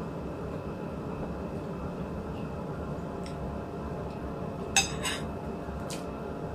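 Cutlery clinking against a dish once about five seconds in, ringing briefly, with a fainter tap a second later, over a steady low hum of room noise.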